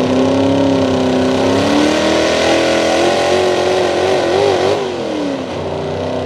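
Big-block V8 of a Ford 4x4 pulling truck revving: its pitch climbs, wavers, then falls away and the engine gets quieter near the end.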